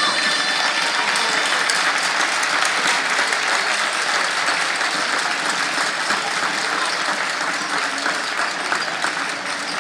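Crowd applauding, a dense steady clapping that tapers off slightly toward the end.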